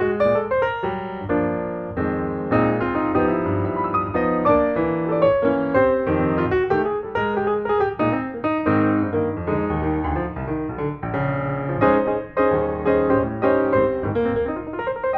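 Background piano music: a busy run of piano notes with no other sound above it.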